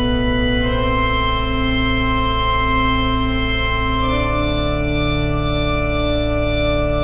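Slow instrumental music of held, organ-like keyboard chords over a steady low drone; the chord changes about a second in and again about four seconds in.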